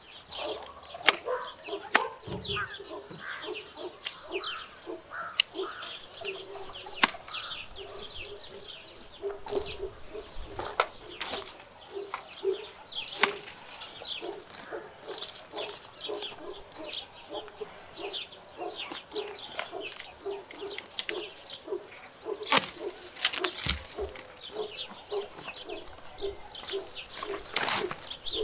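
Hand pruning shears snipping through peach tree branches, with sharp snips at irregular intervals and twigs rustling. Birds chirp and poultry cluck in the background.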